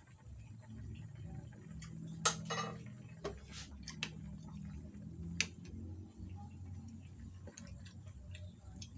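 Squid adobo simmering in its ink sauce in a metal pan, with steady small ticking pops, while a wooden spoon stirs it; the spoon knocks sharply against the pan about two seconds in, again around three and a half, and once more past five seconds.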